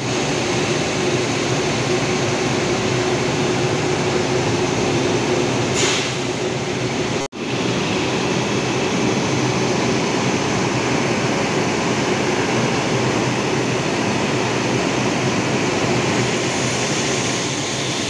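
WAP-7 electric locomotive standing at the platform with its cooling blowers running: a loud, steady whir with a steady hum. A brief hiss about six seconds in.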